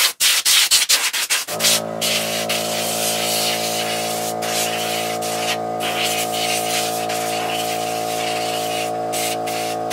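Compressed-air blow gun blowing a mouse nest out of a small engine's cylinder-head cooling fins: a quick run of short blasts at first, then long stretches of hissing air broken by a few brief pauses. A steady hum comes in about a second and a half in.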